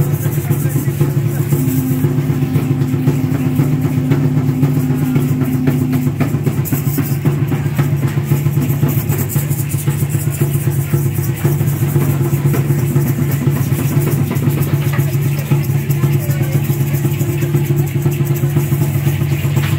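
Aztec dance drumming: a large drum beaten in a fast, unbroken roll, with dense rattling over it. A single long note, like a conch-shell trumpet, is held from about two seconds in until about six seconds.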